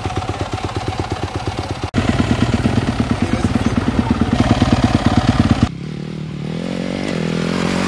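Dirt bike engine running at low revs with an even chugging beat, louder after a cut about two seconds in. After another cut near the end, the engine note rises steadily as the bike revs up.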